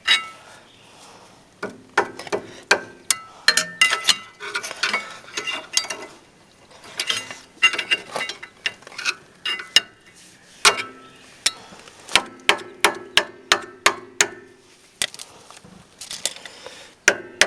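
Screwdrivers prying at rear brake pads stuck in the caliper bracket: metal on metal, repeated sharp clinks and knocks in clusters, some ringing briefly.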